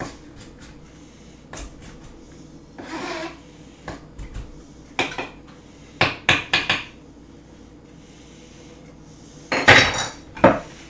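Knife scraping and tapping on a cutting board as chopped celery is gathered into a pile: scattered knocks and scrapes, the loudest cluster near the end.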